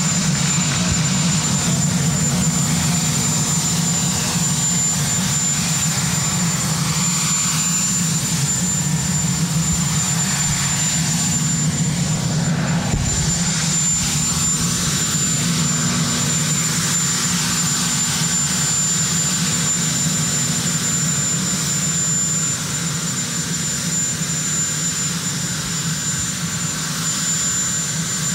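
Sikorsky VH-3D Sea King helicopter running on the ground with its twin turboshaft engines going: a steady low drone under a constant high-pitched turbine whine.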